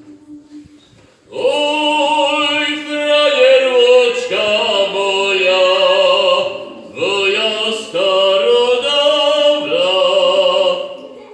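Fujara, the tall Slovak overtone shepherd's flute, played loudly from about a second in: a melody of sustained notes with many overtones. The playing breaks off briefly twice, near the middle and again a second later.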